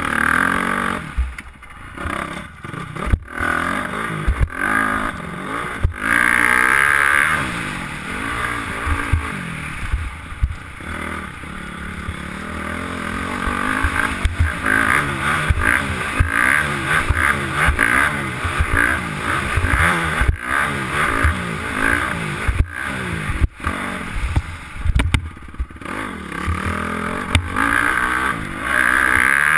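2008 Honda CRF250R's single-cylinder four-stroke engine revving up and down hard as the bike is ridden around a motocross track, with several sharp knocks along the way.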